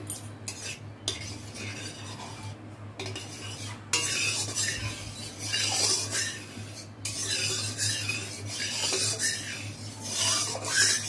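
A metal spatula stirring and scraping around a metal wok, working a spoonful of ghee into hot oil. A few light knocks come first, then the scraping starts about four seconds in and comes and goes, over a steady low hum.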